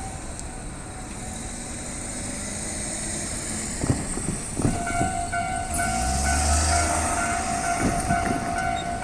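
Railway running noise swells over the first few seconds. About halfway through, a Japanese level-crossing warning bell starts ringing, a steady repeating electronic clang that keeps going.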